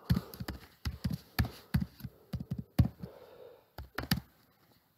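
Typing on a computer keyboard: an uneven run of key clicks, some sharper than others, that stops shortly before the end.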